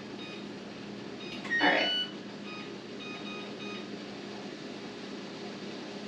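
New electric oven's control panel beeping in short high tones every second or so over a steady low hum, with one louder brief sound and beep about a second and a half in; the oven has just run into some weird issue.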